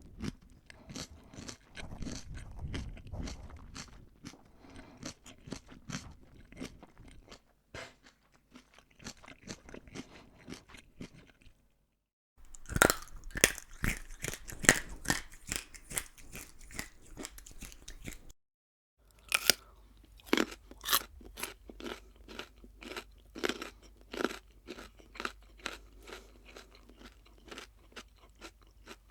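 Close-up crunchy chewing and biting of crisp food, in three separate recordings split by two brief silences.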